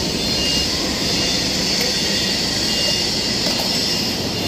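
Steady workshop machinery noise, an even high hiss over a low rumble, with a few short high beeps now and then.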